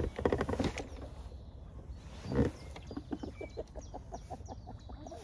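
Jacket fabric rustling and knocking right against the microphone, with a louder knock about two and a half seconds in, then a run of quick clicks.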